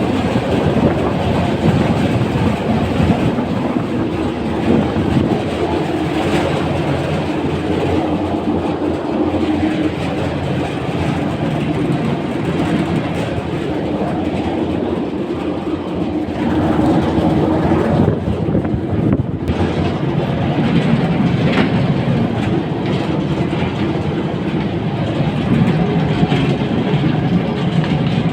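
Air handling unit blower running, with a loud, steady mechanical noise and a low hum: the abnormal sound from the blower's drive-end bearing.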